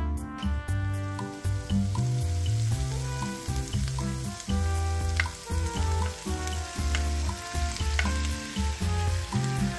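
Peppers and onions sizzling in a hot skillet from about a second in, as browned chicken pieces are scraped in from a glass bowl with a wooden spatula, with a few sharp taps and scrapes of the spatula. Background music with a deep bass line plays underneath.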